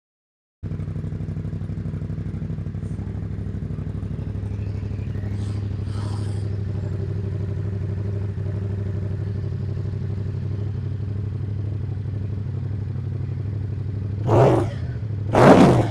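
2021 Yamaha MT-07's 689 cc parallel-twin engine idling steadily, with two quick throttle blips near the end.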